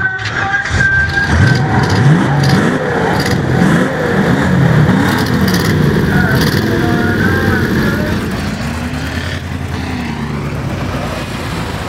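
Several mini stock race car engines starting up and revving together, their pitches rising and falling over one another; the revving eases into steadier running near the end.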